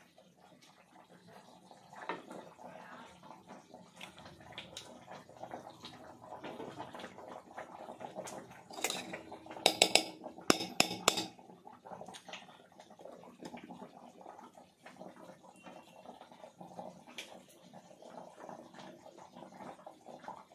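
Steel kitchen utensils clinking: scattered knocks of a spoon and steel dishes, with a burst of several sharp, loud clinks about ten seconds in.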